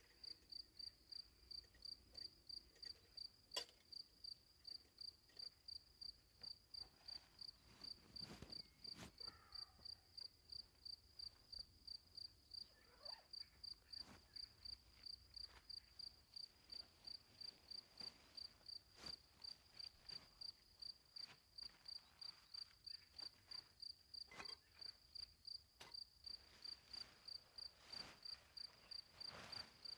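Cricket chirping steadily, a high pulsed note repeating about twice a second, with a few faint clicks and knocks in between.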